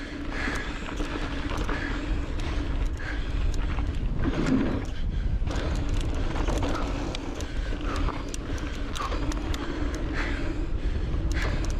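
Electric mountain bike ridden fast down a dirt singletrack: wind rumbling on the chest-mounted microphone, tyres on loose dirt, and chain and frame clattering over bumps, over a steady hum from the pedal-assist motor.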